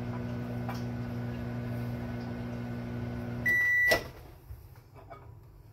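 Over-the-range microwave oven running with a steady hum, then one long beep as it finishes about three and a half seconds in. The hum stops and the door is pulled open with a click.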